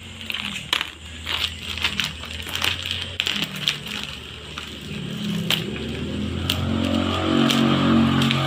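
Scissors snipping through packing tape and plastic wrapping, with sharp clicks and crinkling of the plastic. A pitched drone builds over a low hum from about halfway and is the loudest sound near the end.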